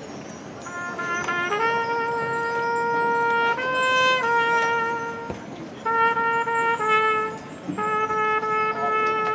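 A single marching-band brass horn playing a slow solo line of long held notes, in phrases broken by short pauses. It steps up to a higher note briefly about four seconds in.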